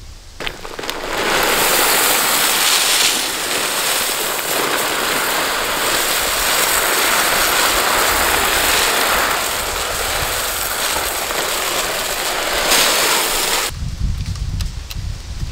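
Shelled corn poured from a bag onto a bait pile: a steady rushing hiss of kernels spilling onto the pile, which cuts off suddenly near the end.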